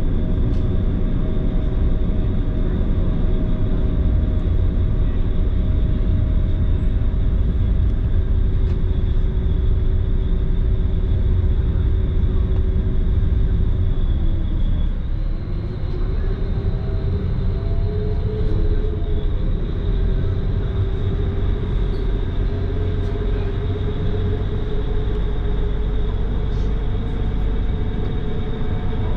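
Passenger ferry's engines running with a steady droning hum over a low rumble. About halfway through the engine note dips briefly, then settles slightly higher, as with a change of throttle.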